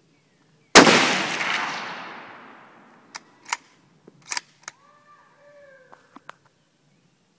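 A single shot from a .338 Remington Ultra Mag Browning A-Bolt II rifle fitted with a three-port muzzle brake, fired about a second in: a sharp crack whose echo fades over about two seconds. Then a run of short metallic clicks as the bolt is worked.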